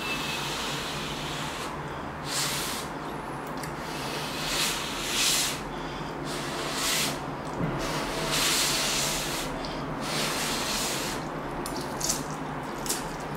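A person slurping instant ramen noodles: repeated hissing slurps, each up to about a second long, several seconds apart.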